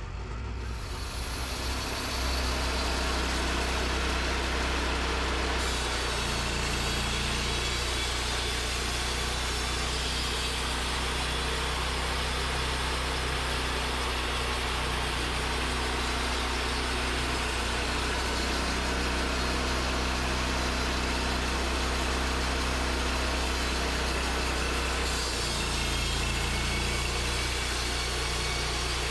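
Portable sawmill's engine running steadily. It builds up over the first two seconds, and its low note shifts about six seconds in and again near the end.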